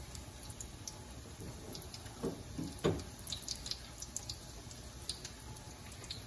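Breaded chicken breasts shallow-frying in hot oil in a stainless steel skillet: a steady sizzle with scattered crackling pops. Two brief louder knocks come about two and three seconds in.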